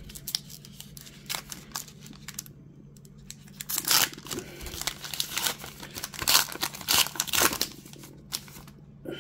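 Topps baseball card pack wrapper being torn open at its crimped seam and peeled off, with many sharp crinkles and tears. The loudest cluster comes from about four to seven and a half seconds in.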